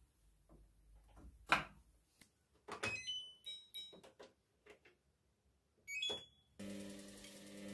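A few knocks and clicks, then a household appliance's control panel beeping as buttons are pressed, with short high electronic tones. Near the end the appliance switches on and runs with a steady hum.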